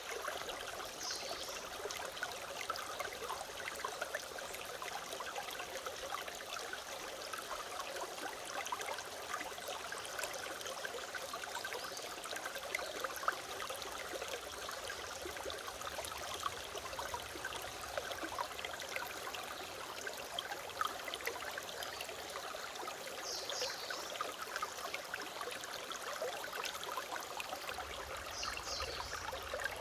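Mountain stream flowing steadily, with a few short high bird chirps about a second in and again twice near the end.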